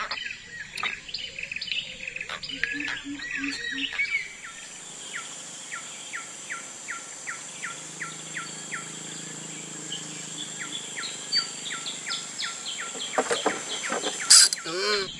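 A bird calling a long run of short, falling notes, about three a second, pausing once and starting again, over a steady high insect whine. In the first few seconds there are scattered clicks and chirps.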